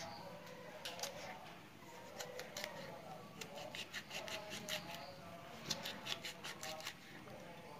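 Knife slicing through red chillies held in the hand: irregular runs of quick, crisp cuts.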